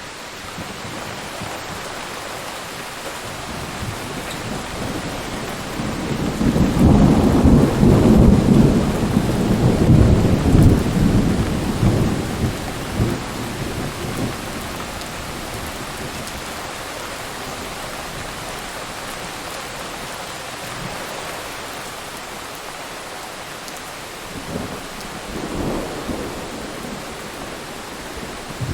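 Steady heavy rain with rolling thunder. A long rumble builds about six seconds in and dies away over several seconds, and a fainter rumble comes near the end.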